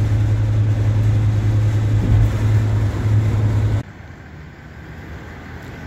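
Steady drone of a vehicle driving at highway speed, road and engine noise with a strong low hum. It cuts off abruptly about four seconds in, leaving a much quieter background.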